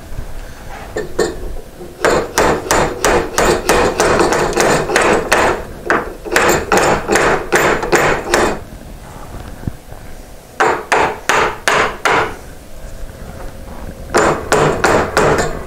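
Claw hammer tapping wooden wedges up into the slot under a stair handrail at the newel post: three runs of quick light blows, about five a second, a long run starting about two seconds in, then two short ones.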